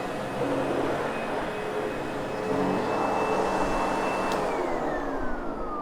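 Sebo X8 upright vacuum cleaner running steadily with a high motor whine, then switched off with a click about four seconds in, its motor winding down in a falling whine.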